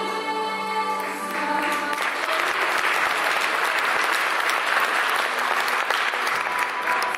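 The last held notes of a song die away in the first second or two, then an audience applauds.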